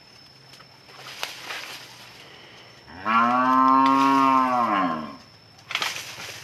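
A cow mooing once, a single long call of about two seconds that starts about three seconds in, rising in pitch at the start and falling away at the end.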